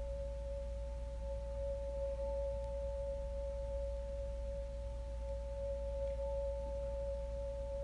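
A steady pure tone sounding two pitches together, held without any change, over a low steady hum.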